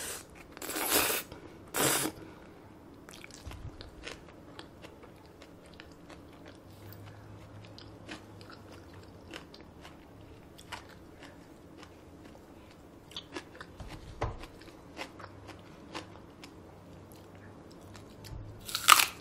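Close-miked eating sounds: two loud slurps of cold spicy Paldo bibim-myeon noodles in the first two seconds, then quiet chewing with small wet clicks. Near the end comes a loud crunchy bite into a raw green onion stalk.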